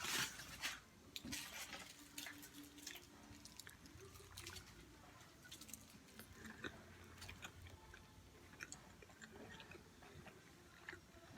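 A person quietly chewing a bite of a McRib sandwich: scattered soft, wet mouth clicks, after a brief louder noise at the very start.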